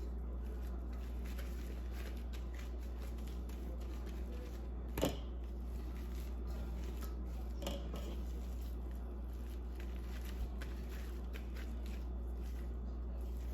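Soft handling sounds of hands shaping ground beef into burger patties: faint rustles and light taps, with one sharp tap about five seconds in and two smaller ones later, over a steady low hum.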